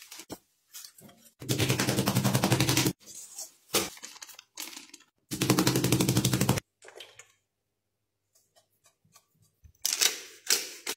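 Breaded beef under plastic wrap being pounded flat with a flat metal tool on a granite counter, in two long, very rapid runs of blows of about a second and a half each, with a few single knocks between them. A short clatter comes near the end.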